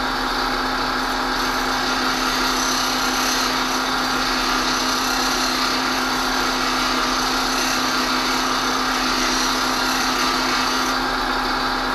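Bench grinder running with a steady motor hum while a high-speed steel plane iron is held against its coarse wheel, giving a continuous grinding hiss. The bevel is being ground down to the edge to remove a flat on a damaged iron.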